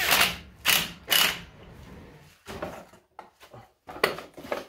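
Cordless drill spinning a socket on the flywheel bolt in three quick bursts over the first second or so. Then scattered clicks and knocks as the recoil pull-start housing is handled and seated on the engine case.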